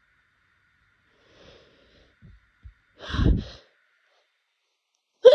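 A person building up to an allergy sneeze: faint breaths, a loud snorting nasal rush about three seconds in, then a sharp sneeze bursting out at the very end.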